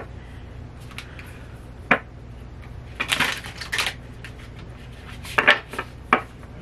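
A new deck of stiff-cardstock tarot cards being shuffled by hand: a few sharp card snaps and clacks, with a longer riffling rustle about three seconds in. The cards are stiff and not yet broken in.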